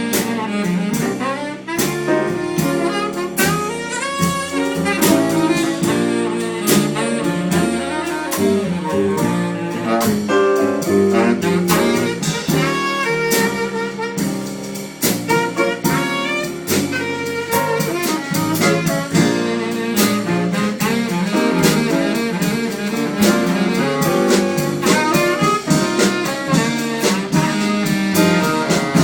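Jazz music led by a saxophone playing a busy run of notes, with steady drum hits underneath.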